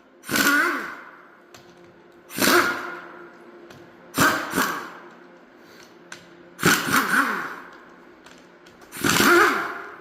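Impact wrench running in five short bursts, about one every two seconds, each winding down with a falling whine, as bolts are run out of a differential during teardown.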